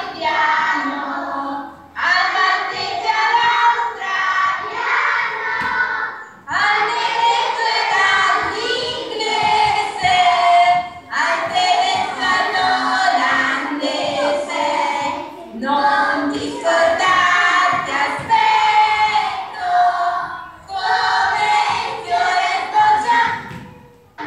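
A group of children singing a song together, in phrases a few seconds long with short breaks between them.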